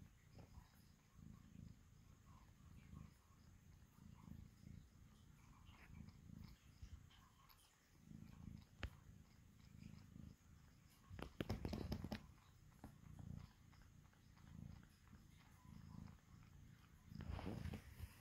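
Tabby cat purring faintly in slow, even in-and-out pulses, close to the microphone. A couple of brief rustling noises come in past the middle and again near the end.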